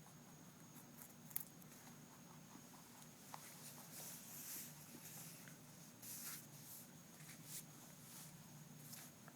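Rabbit crunching a mini carrot: faint, irregular crunching and nibbling clicks, with a sharper crunch about a second in.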